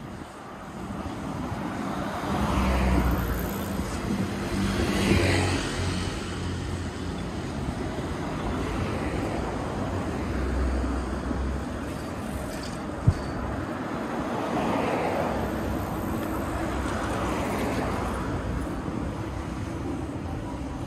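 Street traffic: cars passing one after another, each swelling up and fading away, with a low engine rumble under some of them. A single sharp click comes about thirteen seconds in.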